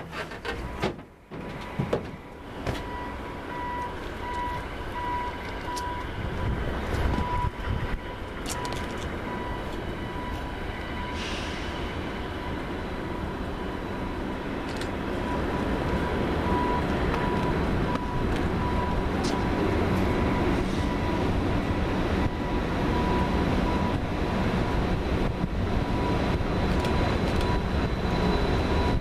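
Diesel locomotives of a freight train approaching, their engine rumble growing steadily louder. A faint steady high tone sounds through it.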